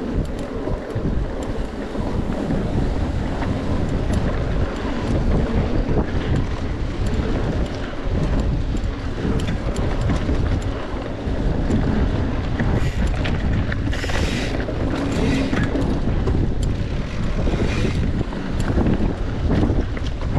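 Wind buffeting the microphone of a camera on a mountain bike ridden fast along a dirt trail, with steady tyre and trail noise and scattered clicks and rattles from the bike. A short hiss comes about two-thirds of the way through.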